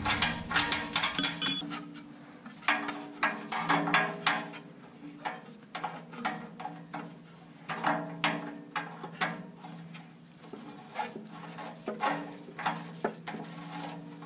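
Irregular metallic clicks, clinks and scrapes of hand tools and parts against the exhaust pipes as the O2 bung plug is unscrewed and a wideband oxygen sensor is threaded in by hand, over a steady low hum.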